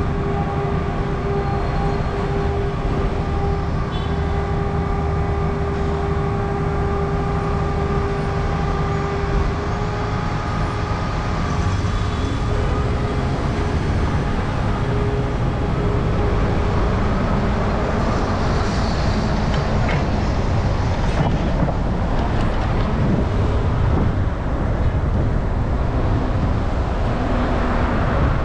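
Steady rumble of vehicle noise, with a steady humming tone for the first ten seconds or so.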